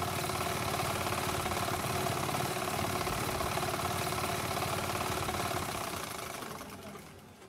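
A motor running steadily with a fast, even pulse, fading out over the last two seconds.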